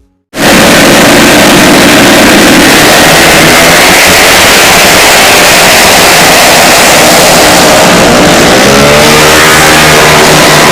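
A 130 cc automatic scooter engine revving hard, very loud and distorted, cutting in abruptly; its pitch climbs again about eight seconds in.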